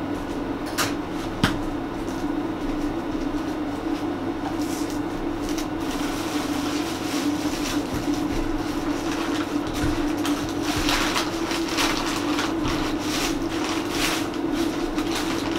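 A cardboard box being slit open and unpacked: two sharp clicks about a second in, then crinkling brown kraft packing paper and a rustling plastic bag being pulled out. A steady low machine hum runs underneath.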